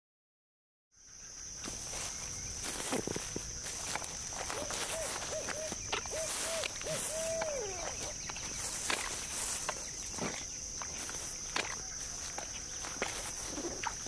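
Woodland ambience fading in after about a second of silence: a steady high insect drone with scattered short crackles. About halfway through comes a run of about seven short rising-and-falling animal calls, the last one longer.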